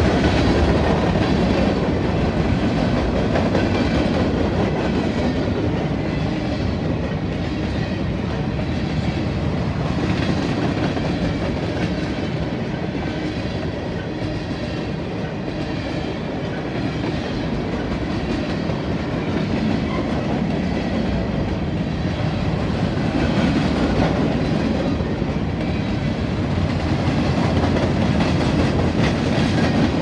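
Freight cars of a manifest train rolling past at close range: the steady rumble and rattle of steel wheels running on the rails.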